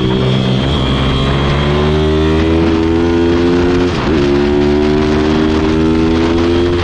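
Pit bike's small single-cylinder engine heard from on board while riding: the revs dip through a corner, then climb steadily under throttle, drop briefly about four seconds in and climb again to hold high on the straight.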